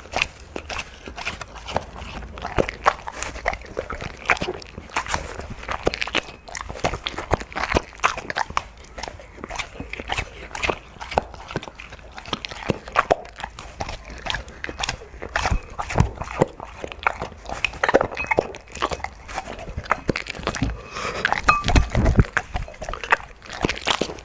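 Labrador chewing and crunching food close to the microphone: a dense, irregular run of loud crunches and bites.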